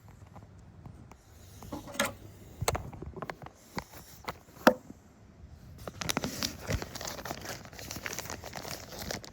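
Packaging of a drone controller being handled and opened: a few sharp cardboard knocks and clicks, then continuous crinkling of the wrapping from about six seconds in.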